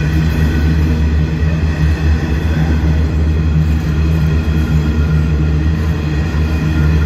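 Freight train of coal hopper wagons rolling past close by, the wheels running steadily on the rails. A faint high ringing of steel sits above the low sound.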